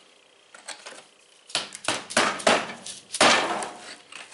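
Several sharp knocks and clatters of a tool breaking up brittle, aircrete-like fill packed inside a steel safe door, beginning about a second and a half in, the loudest about three seconds in.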